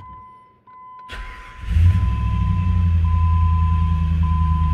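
2005 Jeep Grand Cherokee V8 starting: the starter cranks briefly about a second in, then the engine fires and settles into a steady idle. This is a test start on the original key, which the immobiliser accepts. A steady high electronic chime from the dash sounds throughout.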